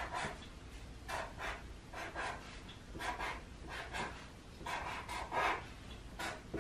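Felt-tip marker drawing short strokes on paper: a series of brief scratchy squeaks, one or two a second at uneven spacing, some in quick pairs.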